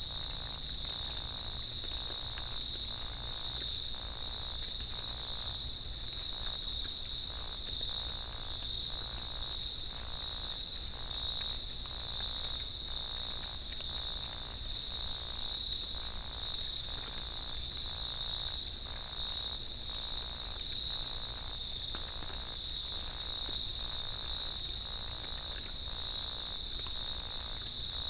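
Steady chorus of night insects such as crickets, a continuous high buzz in two close pitches, with faint regular pulses about every second underneath.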